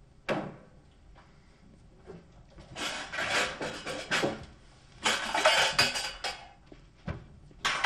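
Objects clattering and rattling in a kitchen cupboard as it is rummaged through, in two stretches of a second or two each, after one short sharp sound just after the start.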